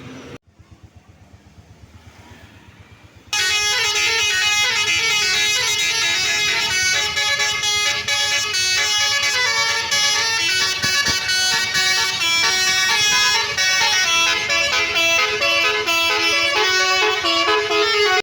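A tour bus's basuri telolet horn, a multi-note air horn, playing a quick melody of stepping notes. It comes in suddenly and loud about three seconds in.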